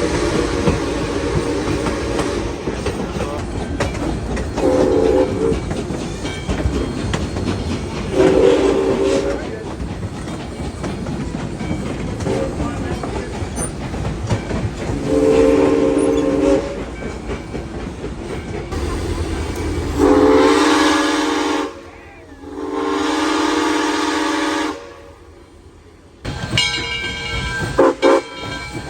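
Nathan six-chime steam whistle on Southern Railway 630, a 2-8-0 steam locomotive, blowing a series of separate blasts, some short and some held for a couple of seconds, each a steady chord of several notes. The rumble of the moving train runs underneath.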